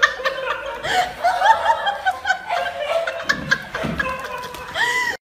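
High-pitched laughter in quick repeated bursts, with a few light knocks in between.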